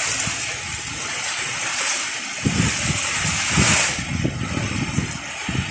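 Tropical-storm wind and heavy rain: a steady rushing noise that swells in a gust about two-thirds of the way through. From a little before halfway, wind buffets the microphone with a low rumbling.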